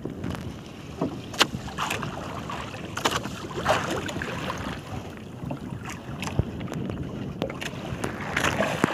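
Wind and water noise aboard a small wooden outrigger fishing boat, with scattered sharp knocks and clunks of gear being handled against the hull; no engine is running.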